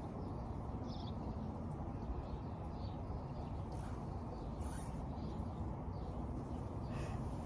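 Steady low outdoor background rumble with faint bird chirps every second or two, and a few short sniffs from a person crying quietly.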